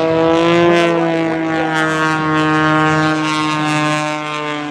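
Piston engines and propellers of two aerobatic planes, a biplane and a monoplane, droning as they fly a close-formation pass; the drone holds one steady pitch, rising slightly in the first half-second.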